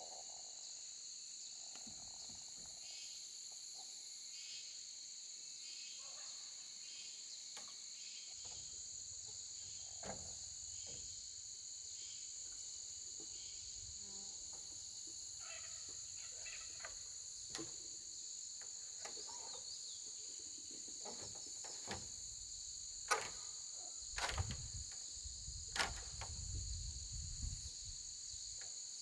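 Steady, high-pitched insect chorus running on without a break. In the second half a few sharp knocks and low thumps sound, several between about 23 and 27 seconds in, with her moving on the wooden roof frame.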